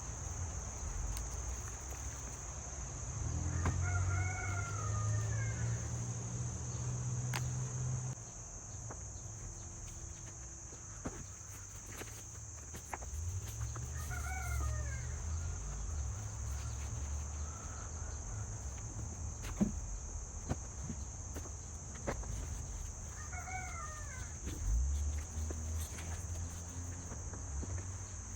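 Rooster crowing three times, about ten seconds apart, over a steady high drone of insects such as crickets, with a low rumble underneath.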